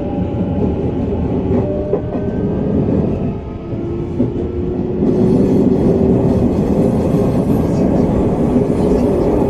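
Interior running sound of a Hanshin 1000 series electric train, heard inside motor car MoHa 1006: steady wheel-on-rail rumble with a faint traction-motor tone gliding slowly up in pitch. About halfway through, the sound grows a little louder and hissier.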